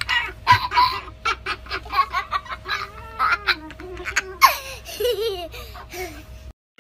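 A cockatoo laughing: a long run of quick, laugh-like calls that bend up and down in pitch, cutting off abruptly near the end.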